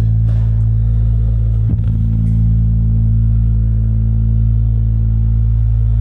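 A loud, steady low drone of several stacked low tones from the stage amplification during a band's sound check, with a brief knock about two seconds in.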